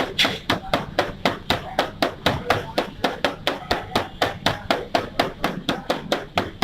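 Rapid, even chopping strikes of a knife on a cutting board, about four or five a second.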